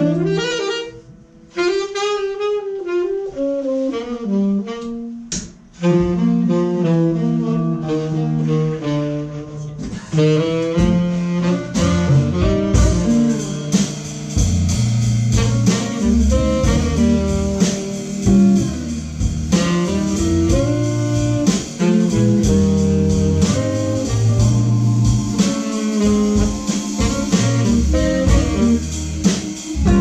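Small jazz-blues band playing a blues: tenor saxophone, electric guitar, Hammond organ and drums. It starts sparse with short breaks, fills out about six seconds in, and becomes a full band with cymbals from about a dozen seconds in.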